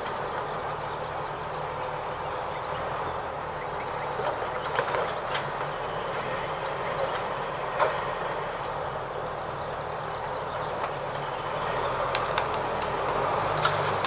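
Amkodor 2661-01 forestry forwarder's diesel engine running steadily as the loaded machine drives slowly over the forest floor. Now and then sharp cracks break in, more of them near the end, typical of branches snapping under its wheels.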